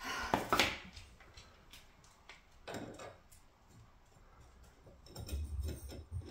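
Light clicks and knocks of a cut tile piece being handled and set against the fireplace surround for a dry fit. Two sharp clicks come within the first second, another knock about three seconds in, and a few small taps near the end.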